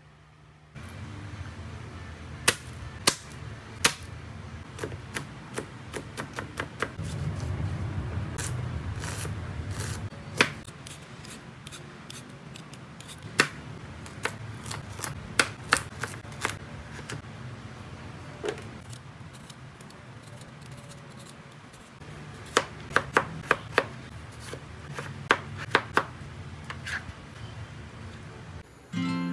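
Kitchen knife chopping vegetables on a plastic cutting board: sharp knocks of the blade on the board, scattered and now and then in quick runs, over a low steady hum.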